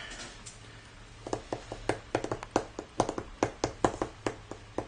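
Cardboard jigsaw puzzle pieces clicking and tapping on the table and against each other as they are handled. A quick, irregular run of sharp clicks starts about a second in, over a faint low hum.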